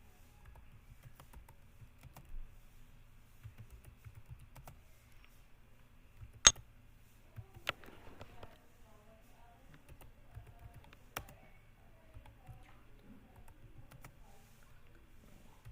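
Computer keyboard being typed on: a run of irregular keystrokes, with one much louder sharp key click about six and a half seconds in.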